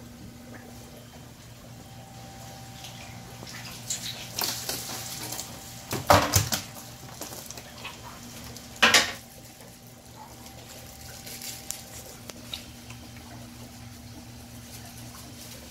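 Live eels thrashing in a plastic bucket with a little water: wet splashes and slaps against the plastic in a few short bursts, the loudest about six seconds in and another about nine seconds in, over a steady low hum.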